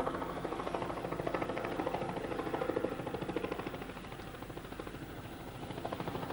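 Helicopter lifting off and hovering just above the ground, its rotor chopping with a rapid, even beat over the turbine's run; the sound dips slightly in the middle and swells again near the end.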